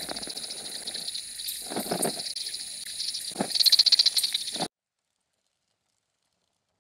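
Night insects trilling steadily in a high, fast pulsing chorus, with a louder burst of rapid rattling pulses about four seconds in. The sound then cuts off abruptly to dead silence.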